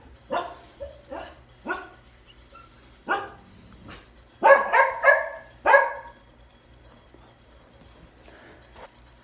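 A dog barking in short single barks: a few scattered through the first two seconds, one about three seconds in, then a quicker run of four loud barks between about four and a half and six seconds.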